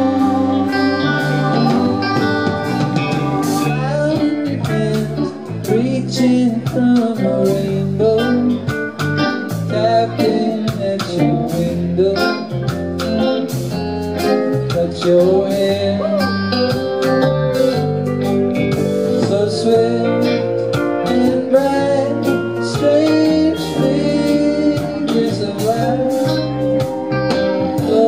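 Live rock band playing with electric guitars, bass and drums: a guitar-led jam in which a lead line glides and bends between notes over a steady rhythm.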